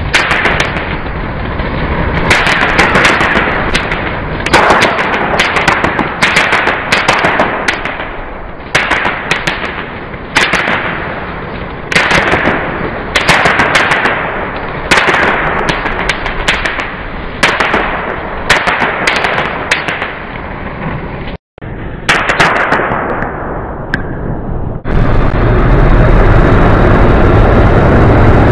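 Ground firework fountain hissing and crackling, with a fresh surge of hiss and a burst of crackles about every one and a half seconds. After a brief dropout, a loud steady rumble takes over near the end.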